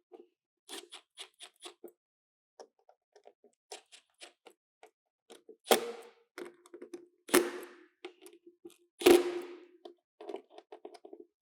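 Small hard parts being handled: a run of light clicks and taps, with three louder sharp knocks about a second and a half apart past the middle, each leaving a brief ring.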